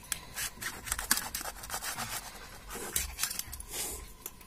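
Kitchen knife cutting through a block of fresh paneer on a stainless steel plate, the blade clicking and scraping against the steel in short, irregular strokes.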